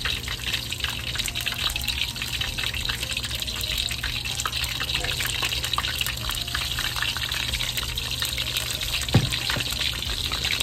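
Hot oil in a wok sizzling steadily around battered sole fillets as they deep-fry, with a dense crackle of fine pops. A single dull thump about nine seconds in.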